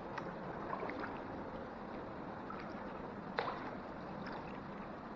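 Water trickling and lapping around a kayak inside a cave, with scattered small drips or ticks and one sharper knock a little past three seconds in.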